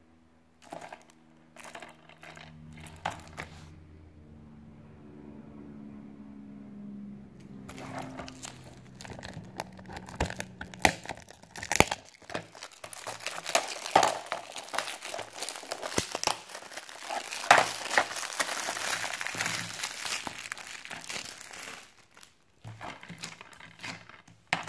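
Cellophane shrink-wrap being torn and peeled off a DVD case. A few handling clicks come first, then from about eight seconds in there is a long stretch of continuous crinkling and crackling with sharp snaps. It stops a couple of seconds before the end, leaving a few clicks.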